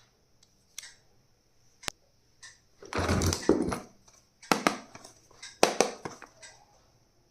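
Stationery items and their plastic packaging being handled: scattered sharp clicks and taps, with a longer crinkling rustle about three seconds in.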